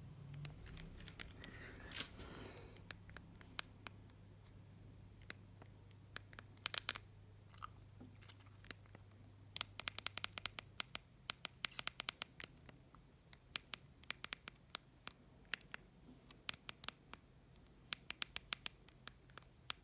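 Irregular sharp clicks, some coming in quick runs, with a brief rubbing scrape about two seconds in: a Mobiwire Sakari mobile phone being handled and its buttons pressed. A faint low hum sits underneath.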